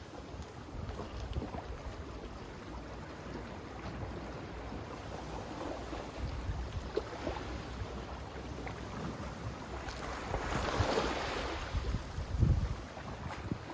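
Sea waves washing in a steady rush of surf, with a louder wave surging about ten seconds in. Low rumbling gusts of wind buffet the microphone near the end.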